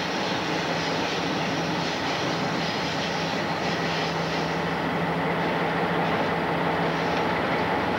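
Diesel locomotive under way: a steady engine drone with the rumble of wheels on the rails, heard from aboard the locomotive.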